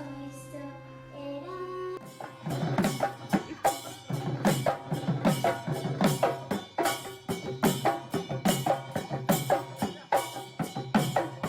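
Music: a soft melodic passage, then about two seconds in a steady, driving drum beat comes in and carries on.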